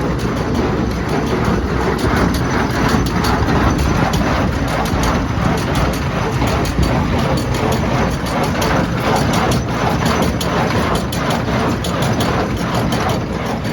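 Welger AP530 small square baler running off a tractor: a steady mechanical clatter of rapid clicks over the low rumble of the tractor engine.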